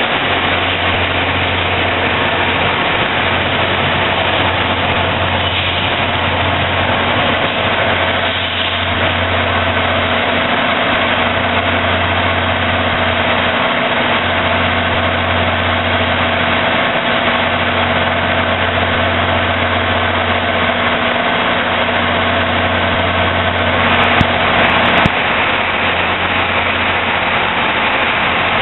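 Diesel locomotives idling at a station platform: a steady, loud engine drone with a deep hum, briefly louder about 24 seconds in.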